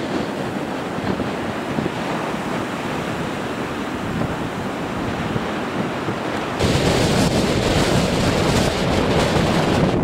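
Storm wind buffeting the microphone over the rush of rough surf breaking on the beach. About two-thirds of the way in, the noise turns suddenly louder and fuller.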